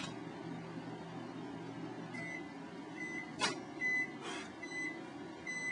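Microwave oven running with a low hum that thins out about two seconds in, then its beeper sounding five short high beeps a little under a second apart. Two brief hissy bursts cut in between the beeps.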